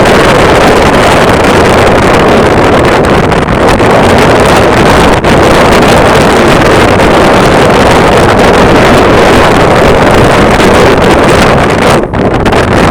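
Strong wind buffeting the microphone: a loud, steady rush of noise that dips briefly about five seconds in and again near the end.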